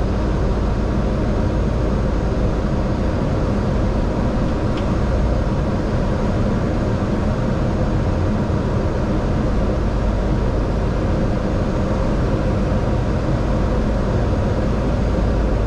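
Steady cockpit noise of an aircraft on final approach: even rushing air and engine hum with a few faint steady tones, unchanging in level.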